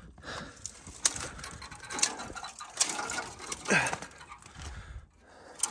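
Footsteps crunching and scraping on loose rock and gravel: a handful of separate steps about a second apart.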